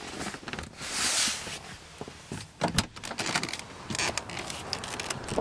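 Handling noise in a car's back seat: a hand brushing over leather upholstery with a loud swish about a second in, then a run of clicks and knocks from the rear door as it is opened.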